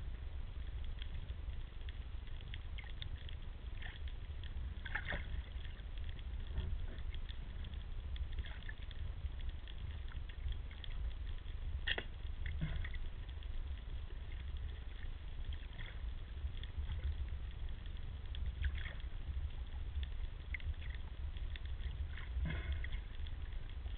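Underwater ambience heard through an action camera's waterproof housing: a steady muffled low rumble with scattered small clicks and crackles, and a few sharper clicks, the clearest near the middle.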